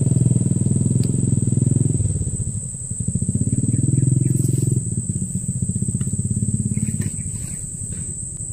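A small engine running steadily with a fast pulsing beat. Its level dips about two seconds in, picks up again, and eases toward the end.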